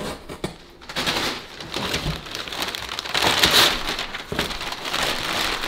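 Paper rustling and crinkling as a wrapped gift is unwrapped, a continuous noisy rustle that swells to its loudest in the middle.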